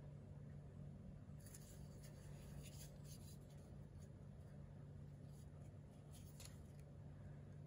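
Near silence: a steady low hum, with faint rubbing and clicking rustles as a hand shifts its grip on a fixed-blade knife's micarta handle. The rustles come about one and a half to three and a half seconds in, and again around six seconds.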